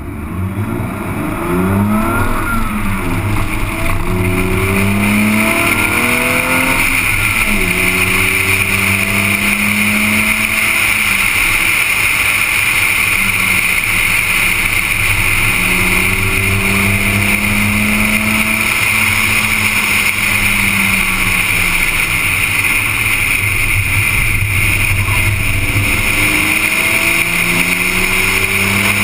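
BMW car engine pulling hard from a standing start, climbing in pitch through several quick upshifts, then running at speed with the revs rising and falling through the corners. A steady rush of wind and road noise sits under it once the car is up to speed.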